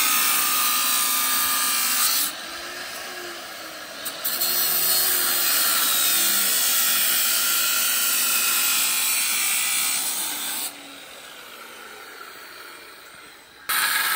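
Angle grinder cutting through steel rebar jutting from a concrete wall top, the motor pitch sagging and recovering under load. The cutting goes in three loud bouts, with quieter pauses about two seconds in and again about eleven seconds in.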